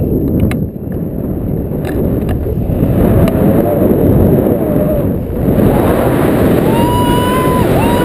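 Loud, low rush of wind buffeting the microphone of an action camera carried in flight under a tandem paraglider. Near the end a woman cries out twice in long, high, held screams.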